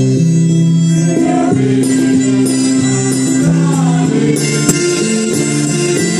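Music with long held chords that change every second or so, in the manner of a slow hymn.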